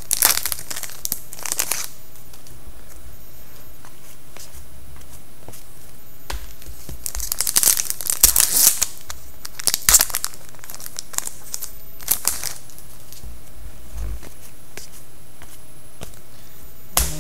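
Foil hockey card pack wrappers being torn open and crinkled by hand, in several bursts of tearing and rustling with quieter pauses between.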